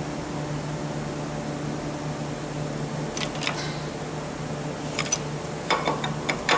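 Light metallic clicks and clinks of small transmission parts being handled at the bench: two about three seconds in and a quick cluster near the end. A steady low hum, like a shop fan, runs under them.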